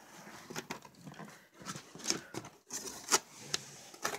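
Cardboard box and plastic packaging being handled as the box is unpacked: irregular rustling and crinkling with a few sharp knocks, the loudest about three seconds in.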